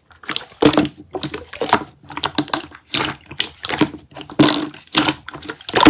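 Slime being pressed and squished by hand: a run of irregular sticky clicks and pops, several a second.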